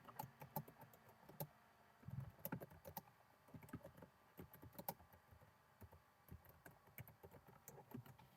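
Faint typing on a computer keyboard: an irregular run of short key clicks, busiest about two to three seconds in.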